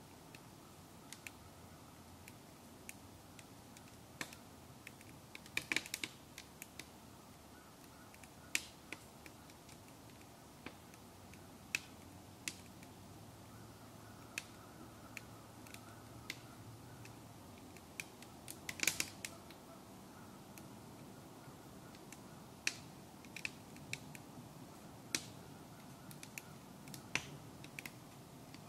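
A wood fire in a sap-boiling stove crackling, with irregular sharp pops and snaps that come in small clusters about six seconds in and again near the middle, over a faint steady low rumble.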